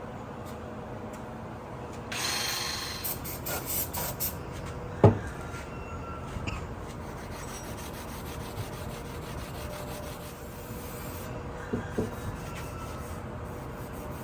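Hand scrubbing of a cast cylinder head with an abrasive pad or brush to clean off old gasket material, a steady rubbing and rasping. There is a short hiss about two seconds in and a single sharp knock about five seconds in.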